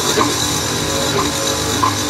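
Karcher HD 5/11 high-pressure washer running steadily with a constant motor-and-pump hum, before its pump is yet delivering water.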